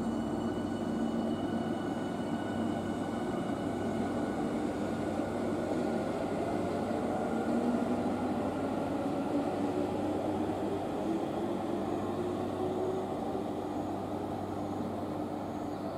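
Y500-series electric train pulling out and accelerating away. The whine of its inverter-driven traction motors slowly rises in pitch over a steady rumble of running gear.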